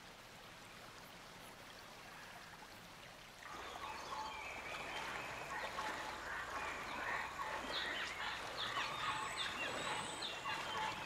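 Rainforest wildlife by a river: a faint hiss, then about three and a half seconds in a dense chorus of short chirping animal calls starts up and keeps going.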